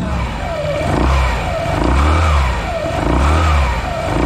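Yamaha NMAX scooter's single-cylinder engine revved up and down about three times with the CVT cover off, the exposed drive pulley, belt and clutch bell spinning as the freshly modified transmission is test-run.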